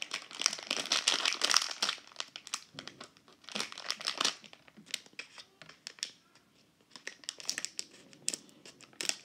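Foil surprise bag crinkling and crackling as it is handled and cut at with scissors, in irregular bursts: densest over the first two seconds, another burst around four seconds, then quieter scattered crackles.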